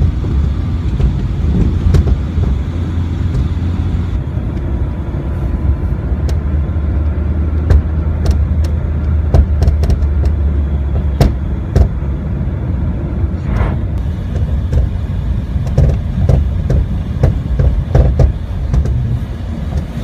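Renault Logan driving over bumps, heard from inside the car: steady road and engine rumble with repeated sharp, hard knocks from the rear suspension, several in quick clusters. The knocking comes from a rear shock absorber frozen stiff in the cold.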